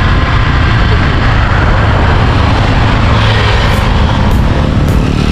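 Steady rush of wind buffeting a moving action camera's microphone at speed, with road noise underneath.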